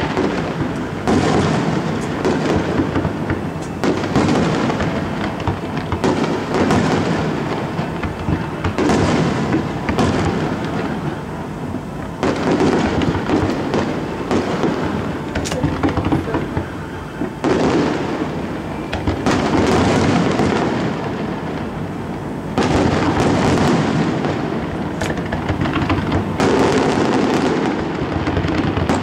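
Aerial fireworks exploding in a dense, continuous barrage, many bursts in quick succession swelling and easing in waves.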